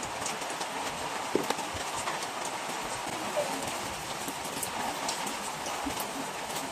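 Clear protective plastic film being peeled off a helmet's shell and visor, crinkling and crackling in irregular small clicks.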